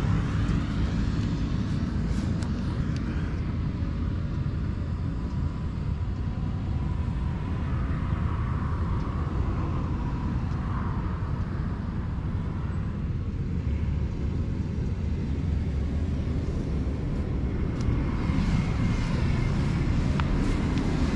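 A steady low rumbling noise with no clear events.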